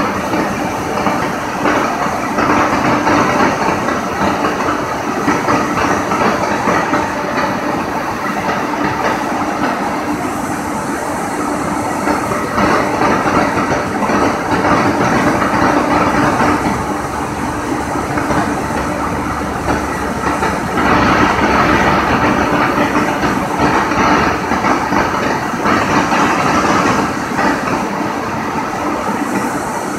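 Indian Railways WAG-9HC electric locomotive moving slowly past at close range: a steady hum over continuous train running noise, growing a little louder about two-thirds of the way through.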